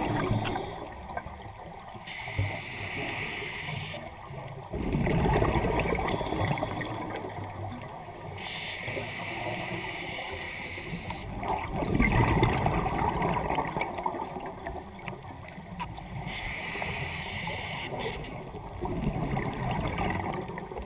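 Scuba diver breathing through a regulator underwater: a hiss on each inhale, then a gurgling rush of exhaled bubbles, three breaths about seven seconds apart.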